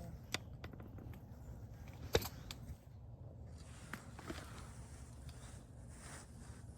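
Faint scattered clicks and knocks of movement and handling, the sharpest about two seconds in, over a low steady rumble.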